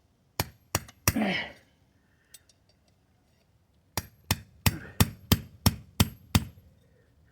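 Sharp separate blows struck on a metal ground anchor: three strikes near the start, then a steady run of eight about three a second, with a faint high metallic ring after some of them.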